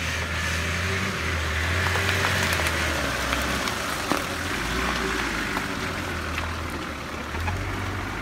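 An off-road 4x4's engine running at low revs as it crawls through undergrowth, its pitch rising and falling a few times. Vegetation rustles against the body, with occasional sharp snaps of stems and twigs.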